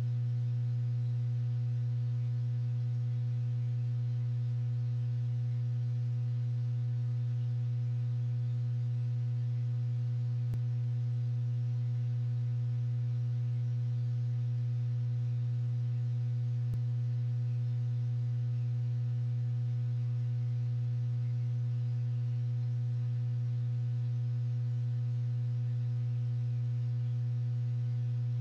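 A steady low electrical-sounding hum with a few overtones, unchanging in pitch and level. Two faint clicks come about ten and seventeen seconds in.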